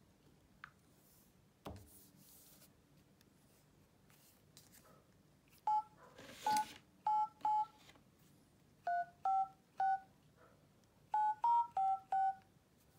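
Touch-tone (DTMF) keypad beeps from a Nokia smartphone's dialer as a phone number is tapped in: eleven short two-tone beeps in three quick groups of four, three and four.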